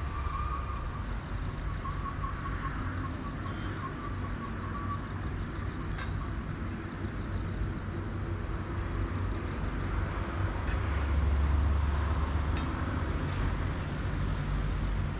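Outdoor ambience: a steady low rumble with a few faint, short high chirps, swelling slightly about eleven seconds in.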